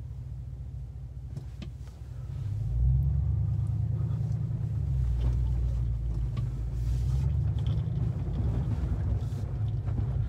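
Low drone of a Chevrolet Silverado's 6.2-litre V8 with a muffler delete, heard from inside the cab. It grows louder about two and a half seconds in and then holds steady.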